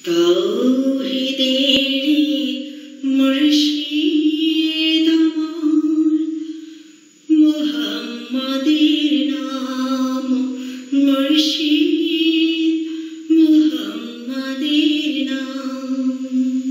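A woman singing a Bengali Islamic song unaccompanied, in long held, ornamented notes. The phrases break briefly about seven and thirteen seconds in.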